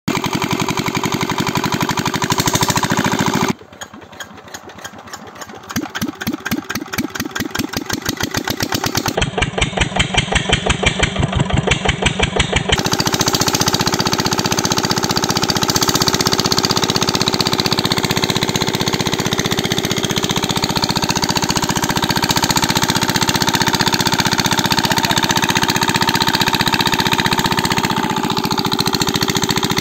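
Small homemade diesel engine. It runs steadily for a few seconds, then drops suddenly to slow, separate firing strokes that grow louder, and from about thirteen seconds in it runs on as a steady loud chug.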